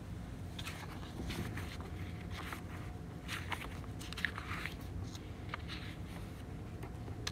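Classroom room noise: a low steady hum with scattered soft rustles and shuffles of people moving.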